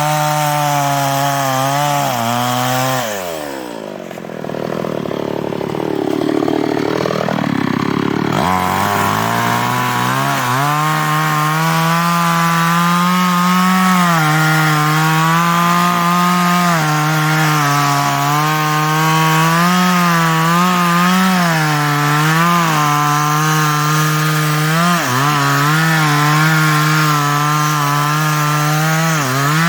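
New West 588 two-stroke chainsaw cutting into teak wood at high revs. About three seconds in the engine speed falls away and comes back up at around eight seconds, then it runs on at high revs with small dips as the chain bites.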